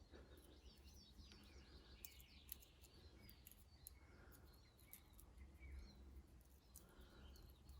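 Near silence, with faint birds chirping in the background and a few light clicks about two seconds in.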